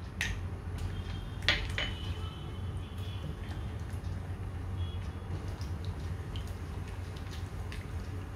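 Cashew nuts sizzling gently in hot ghee in a kadai while being stirred with a silicone spatula, over a steady low hum. A couple of sharp taps come in the first two seconds.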